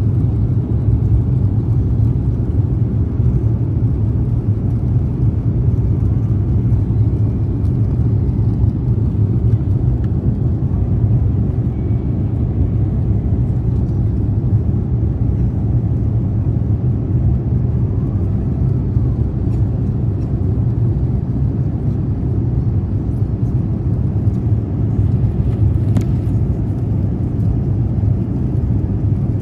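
Jet airliner cabin noise heard from a window seat in flight: a steady low rumble of engines and airflow. A faint click sounds near the end.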